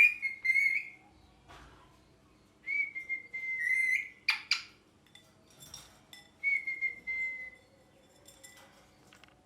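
Pet ringneck parrot whistling: three long, high, steady whistles of about a second each, with a short sharp screech about four and a half seconds in.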